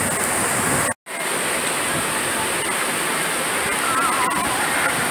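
Heavy rain pouring down steadily, a dense even hiss. The sound cuts out completely for a moment about a second in.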